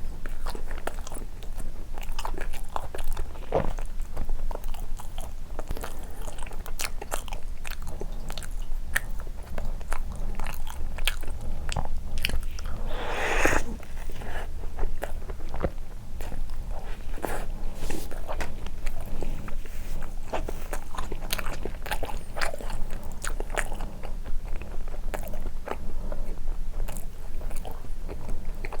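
Close-miked chewing and wet mouth sounds of someone eating soft cream bread dipped in milk, with many small sharp clicks. A brief louder rushing sound comes about halfway through, over a steady low hum.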